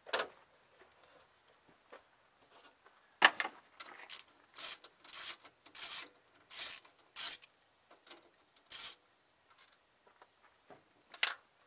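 A hand socket ratchet clicking in about six short rasping strokes, after a sharp metal clank about three seconds in.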